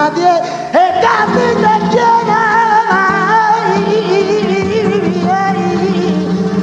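Male flamenco singer singing a fandango: long wavering melismatic vocal lines held over flamenco guitar accompaniment, heard from a live soundboard recording.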